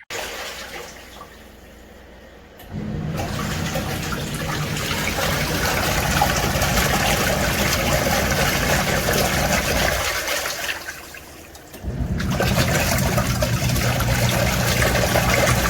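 Water gushing and splashing from a portable twin-tub washing machine. It is quieter at first, comes up suddenly about three seconds in, dips briefly about two-thirds of the way through, then surges again.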